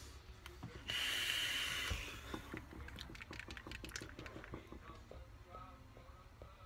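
A steady hiss lasting about a second, starting about a second in: a long draw on a sub-ohm vape firing at 129 watts on a 0.18-ohm build. After it come only faint small sounds and a soft breath out as the vapour is exhaled.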